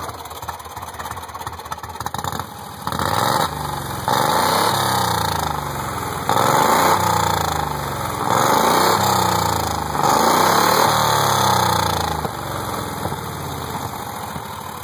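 Golf cart engine running through a new Robertson torque tube exhaust with a Walker muffler. It idles low at first, then is revved up and let back down several times, and settles back to idle near the end.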